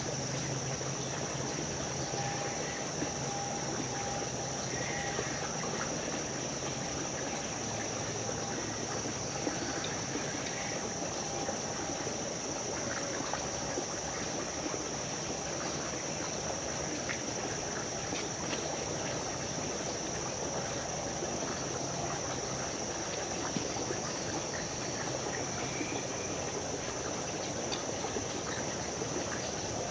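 Creek water running in a steady, even rush, with a constant high-pitched whine over it.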